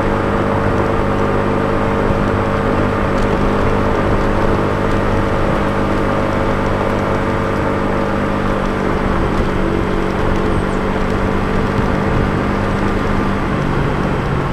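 Small motor scooter's engine running steadily while riding along a paved road, with a low rumble of wind and road noise underneath; its note shifts a little about nine seconds in.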